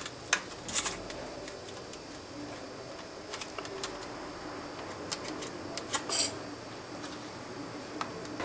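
Plastic external hard-drive enclosure and its metal drive cage being handled and wiggled by hand, giving scattered sharp clicks and knocks in a few small clusters.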